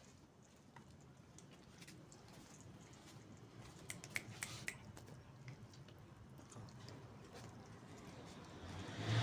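Cats chewing raw meat scraps: faint wet chewing with a few sharp clicks about four seconds in, and a brief louder rush of noise at the very end.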